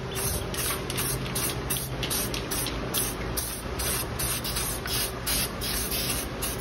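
Aerosol can of black truck bed liner spraying the car's underside, its hiss coming in quick pulses about two to three times a second.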